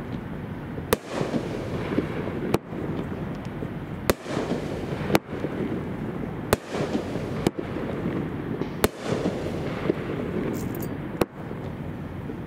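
Alien Fireworks 'Walking Dead' 200-gram fireworks cake firing its brocade-crown and white-strobe shots: about eight sharp reports, one every second or so, with a hiss between them.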